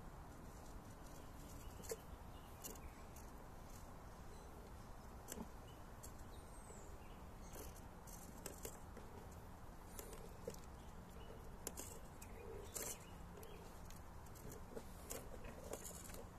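Faint scratching and clicking of a scale RC rock crawler's JConcepts Megalithic tyres gripping and slipping on rock as the truck creeps up a ledge, with scattered small ticks throughout.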